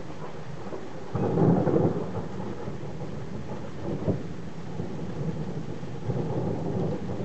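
Thunder rumbling: it swells up about a second in, loudest there, then rolls on with further swells near four and six seconds.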